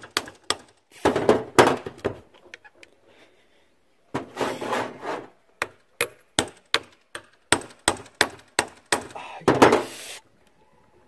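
Hammer blows driving a screwdriver into the seam of a welding-machine transformer's laminated iron core to split the core apart: runs of sharp knocks, about two to three a second, with short pauses between runs.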